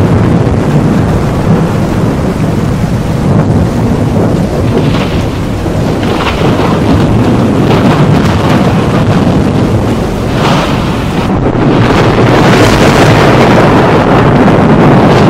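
Thunderstorm: continuous rumbling thunder with rain, broken by sharper cracks every few seconds and growing louder about twelve seconds in.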